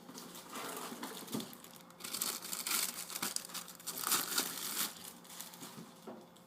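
Plastic wrapping crinkling as a replacement laptop LCD panel is handled. The crackling is heaviest in the middle few seconds.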